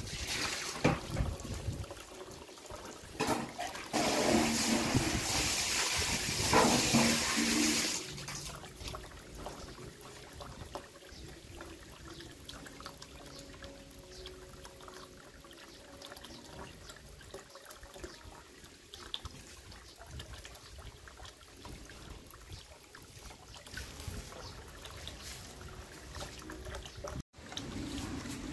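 Thin stream of water from a bowl's spout falling into a concrete fish basin: a steady trickling splash. A louder rushing noise covers it for about four seconds near the start.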